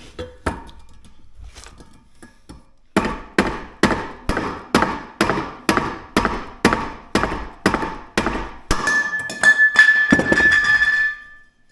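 Hammer blows on a steel bar-stool base, knocking its press-fit stem out. A few light knocks come first; then, about three seconds in, a steady run of hard metallic strikes begins at about three a second, each one ringing. Near the end the blows come faster and the metal rings with a high, steady tone.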